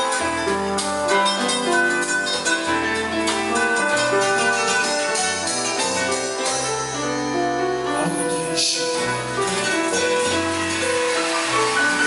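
Electronic keyboard played over a full-band backing, with a moving bass line, keys and light percussion.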